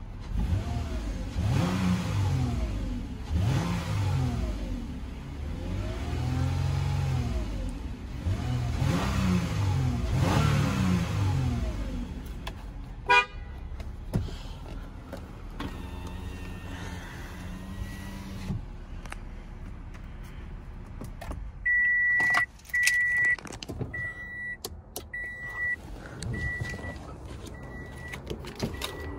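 Toyota 3.5-litre V6 engine, heard from inside the car's cabin, revved up and let back down about five times in quick succession, then running steadily before it stops. Near the end an electronic warning chime beeps about once a second.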